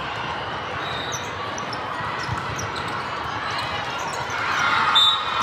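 Indoor volleyball rally in a large, echoing hall: ball contacts and shoe squeaks over the steady hubbub of many courts. Near the end, players and spectators start to shout and cheer as the point is won.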